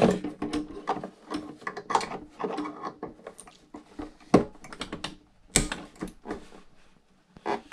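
Irregular clicking and tapping of a small hand tool on metal hardware inside an RC boat's plastic hull, with two sharper knocks about four and a half and five and a half seconds in.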